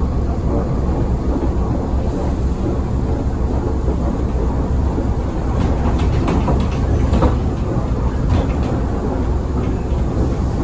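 Cabin noise inside a moving ZiU-682G trolleybus: a steady low rumble of running and road noise, with scattered rattles and knocks from the body between about six and nine seconds in.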